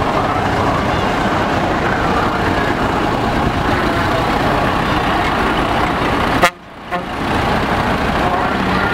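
Diesel engine of a mid-1970s Leyland lorry tractor unit running as it drives off. The sound cuts out briefly about six and a half seconds in, then comes back.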